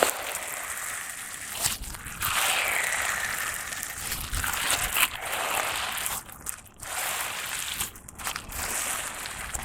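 Slime being squished, folded and stretched by hand, giving a continuous crackling and crinkly popping with a few sharper pops.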